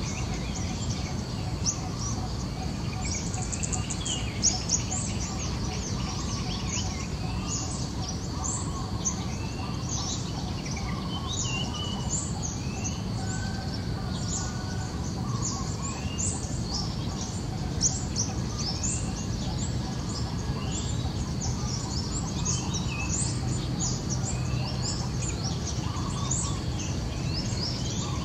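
Outdoor ambience of small birds chirping: many short, high chirps repeating throughout, over steady low background noise and a faint steady high tone.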